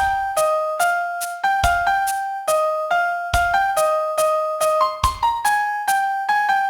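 Piano playing a song melody note by note, each struck note ringing on, over a low bass note on each beat.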